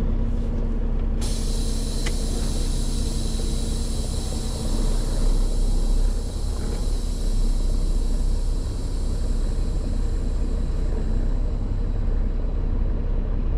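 Peterbilt 579 semi truck's diesel engine running steadily, heard from inside the cab as the truck rolls slowly. A steady high-pitched hiss comes in about a second in and carries on under the engine.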